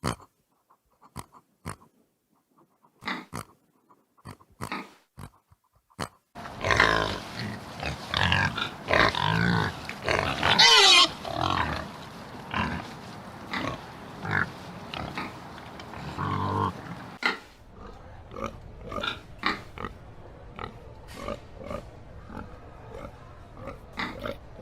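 Pigs grunting and squealing. First come short, separate grunts; about six seconds in, louder squeals and grunts start, with a long wavering squeal near the middle. In the second half there is a steady run of short grunts.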